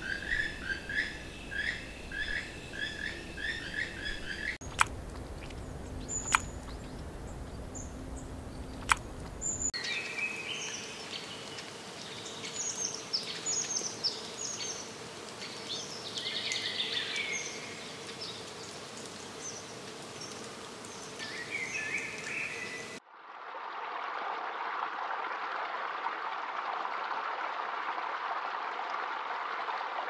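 Birds chirping and singing: first a rapid run of repeated chirps, a few sharp clicks, then a busy mix of several birds' calls. About three quarters of the way through the birds cut off and the steady rush of a small woodland stream takes over.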